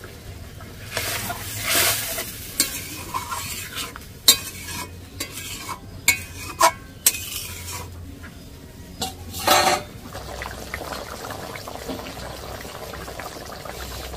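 Metal spatula stirring curry in a metal kadai, scraping and knocking against the pan several times. From about ten seconds in, a steady fine crackle of the curry gravy bubbling on the boil.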